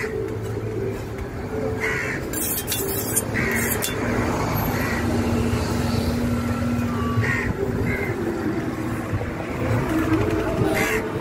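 Crows cawing in short calls every second or two over a steady low background rumble.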